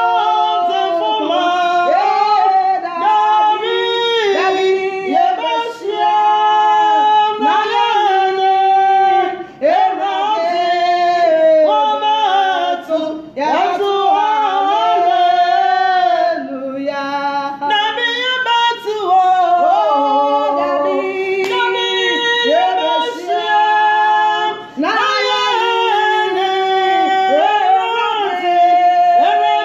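Two women singing a worship song together, unaccompanied, in long held and gliding phrases with brief breaks between lines.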